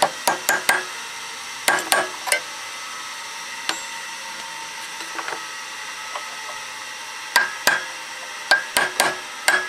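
Hammer striking a steel punch to drive a stuck key out of the keyway on a Tecumseh HS40 engine's crankshaft. The metal-on-metal taps come in short groups of two or three, with a quieter stretch in the middle and a quicker run of blows near the end.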